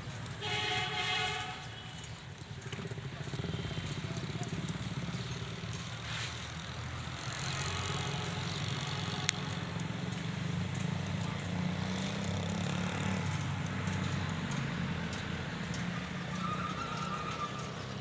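A Pakistan Railways RGE-24 diesel locomotive hauling a train: its horn sounds once, briefly, near the start, then the steady low drone of the approaching engine carries on and grows a little louder.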